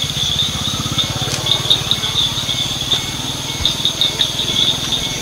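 Vehicle engine idling steadily, with a high, pulsing insect chorus over it.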